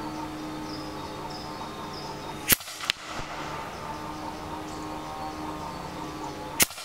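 EDgun Leshiy 2 semi-automatic PCP air rifle firing heavy pellets: two sharp shots about four seconds apart, one about two and a half seconds in and one near the end. The first shot is followed a third of a second later by a fainter second crack.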